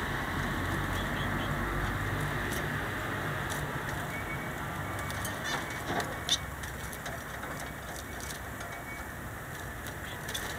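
Caged society finches hopping about, giving a few short chirps and clicks; the loudest come around six seconds in. Under them runs a steady low background rumble.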